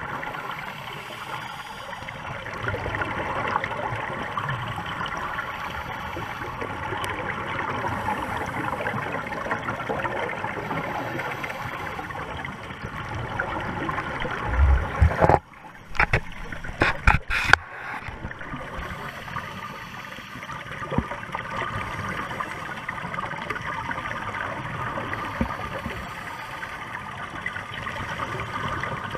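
Underwater ambience picked up by a diver's camera in its waterproof housing: a steady rushing hiss of water and bubbles. About halfway through comes a short cluster of loud knocks and thumps, with a brief dropout.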